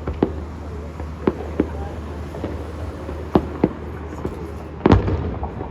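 Fireworks bursting: about seven scattered sharp bangs, the loudest and deepest about five seconds in, over a steady low hum.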